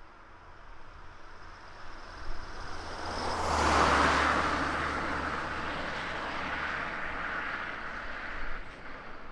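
A road vehicle passing by, its tyre noise and low engine rumble rising to a peak about four seconds in and then fading slowly.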